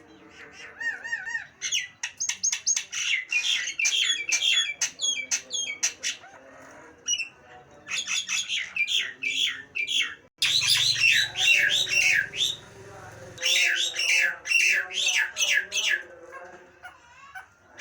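Nias hill myna calling: a few warbling notes, then rapid runs of loud, sharply falling calls in three bouts with short pauses between.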